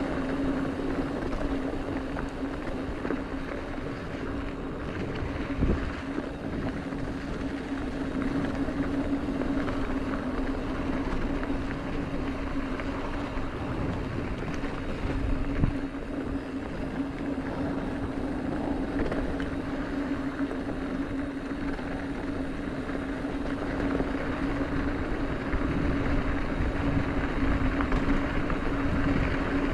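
Mountain bike rolling down a dirt trail: steady tyre noise over dirt and gravel with scattered knocks and rattles from the bike, over a constant low buzzing hum.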